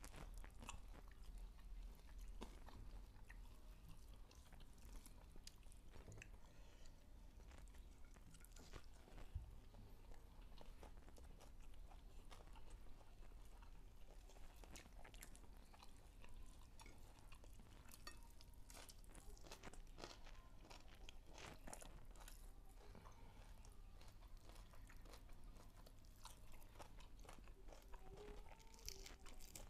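Faint, close-miked chewing and crunching of food, with many short crackles scattered throughout.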